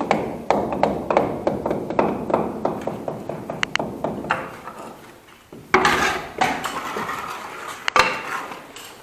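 Metal chimney-pipe fittings being handled: a quick run of light taps and clinks with a little ringing, then a louder clattering scrape about six seconds in and one sharp knock about two seconds later.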